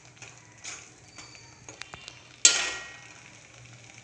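A steel ladle clinking lightly in an aluminium pot of thick masala paste, then one loud metal clank with a short ring about two and a half seconds in as the ladle is knocked against the pot and lifted out.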